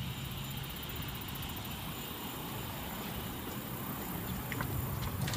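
Steady low background noise with a low hum, a couple of faint clicks near the end as the noise grows slightly louder.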